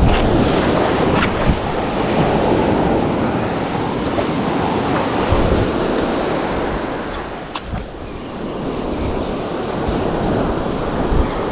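Small surf breaking and washing up the sand at the water's edge, swelling and easing, with wind buffeting the microphone.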